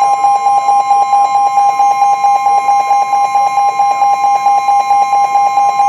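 Emergency Alert System attention signal: a loud, steady two-tone alert tone, sounded to introduce a broadcast severe weather warning.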